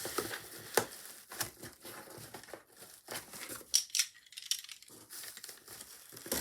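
Packaging being handled and unpacked: cardboard and packing material rustling and crinkling, with a few sharp clicks and taps scattered through.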